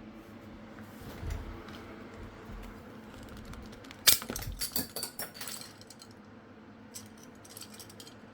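Small hard objects clattering and clinking as they are handled, in a dense rattling run of about two seconds in the middle, followed by a few lighter clicks near the end.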